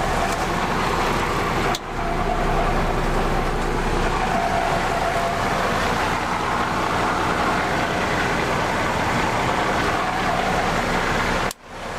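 Case IH 7130 combine running steadily while harvesting corn, a continuous machine sound with a steady low hum. The sound cuts out briefly about two seconds in, and again more deeply near the end.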